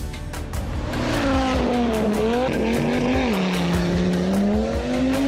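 Race-car engine sound effect revving from about a second in, its pitch falling and then rising again, with a tyre-like hiss, over background music.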